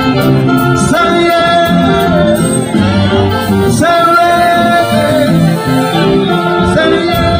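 Live reggae band with a male singer holding long sung notes into a microphone, over keyboards and a steady drum beat with regular cymbal strokes.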